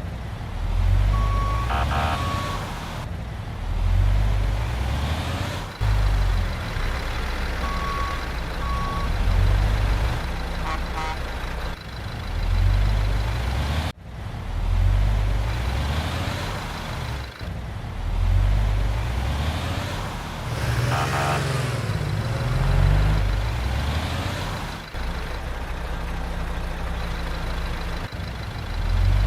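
Heavy diesel construction machinery running, a deep rumble that surges and eases every couple of seconds, with a few short electronic beeps early on.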